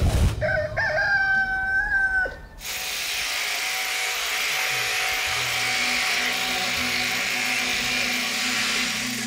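A rooster crows once, a single held call about two seconds long. Then an electric sheep-shearing handpiece runs steadily with a buzzing hiss as it clips heavy, matted wool.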